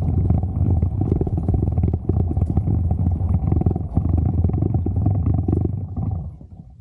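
Wind buffeting the microphone as the camera moves along the trail: a heavy, uneven low rumble that fades away near the end.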